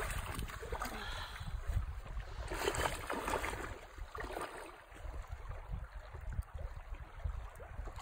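Shallow, clear stream running over a bed of stones, with wind rumbling on the microphone. The water sound is a little louder about three seconds in.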